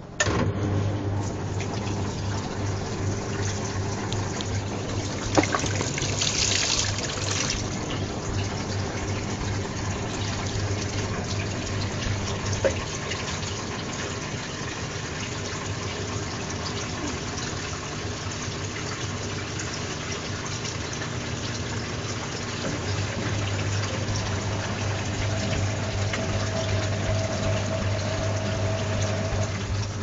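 Whirlpool front-loading washing machine filling with water for its first rinse: water starts rushing into the drum suddenly, over a steady low hum.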